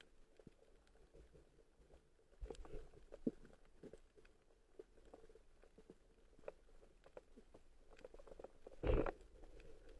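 Faint underwater sound recorded under water over a coral reef: scattered small clicks and crackles over a low rumble, with a couple of low surges a few seconds in and one louder thump near the end.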